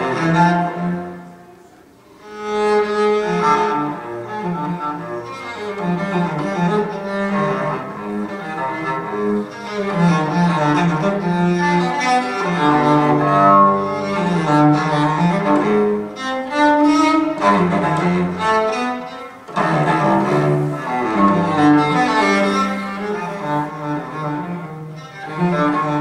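Recorded music led by low bowed strings, played through Natural Sound 1 field-coil loudspeakers (15-inch Maxonic field-coil driver and Maxonic compression tweeter) and heard in the room. It falls quiet briefly about two seconds in, then carries on.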